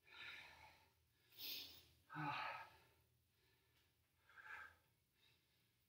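A man breathing out in faint, short sighs, four times, winding down after a high-intensity workout.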